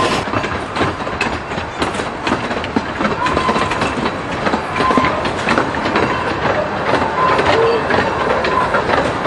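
Amusement-park ride train heard from on board, running along its track. The carriage wheels clatter steadily over the rail joints, with a few brief high wheel squeals.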